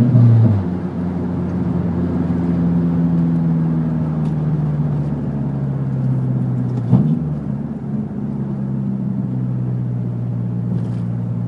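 Mazdaspeed 3's turbocharged 2.3-litre four-cylinder idling through an open downpipe with no resonator or mufflers. It drops back from a rev to a steady idle within the first second, with one short, sharp blip about seven seconds in.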